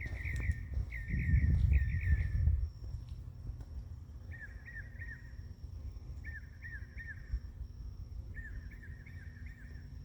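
A bird calling over and over, each call a quick phrase of three or four notes, repeated about six times. A thin steady high tone runs behind it, and a low rumble sits under the first two or three seconds.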